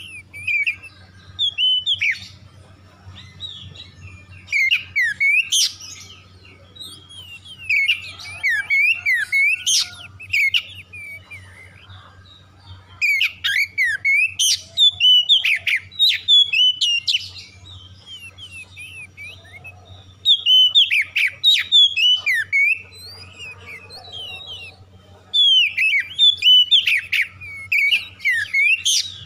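Oriental magpie-robin (kacer) singing: loud bursts of varied, sharply gliding whistled phrases, each lasting a second or two, with short pauses between them.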